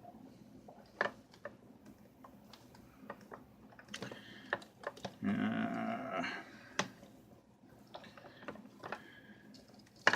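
Light clicks and knocks from handling the electrolysis setup: the padlock and its clip leads being taken out of the bath. About five seconds in there is a louder scraping rustle lasting about a second.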